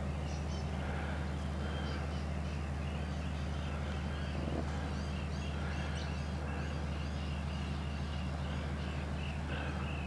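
Birds calling, with a run of short, quickly repeated chirps from about halfway through, over a steady low hum.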